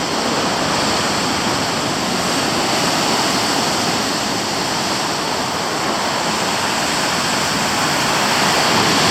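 Storm surf breaking on the shore: a loud, steady wash of water noise with no single crash standing out.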